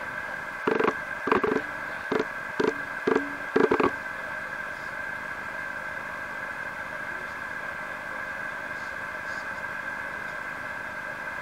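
Steady hiss with a fixed faint whine, the recording's own electrical noise. In the first four seconds about six short, loud bursts break through it, then only the hiss remains.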